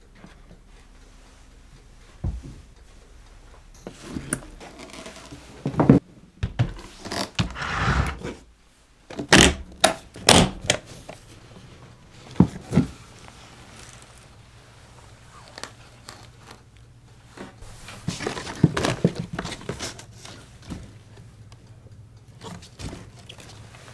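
Handling noises from flower arranging: scattered knocks and sharp clicks, with two stretches of crinkling, about a third of the way in and again about three quarters through.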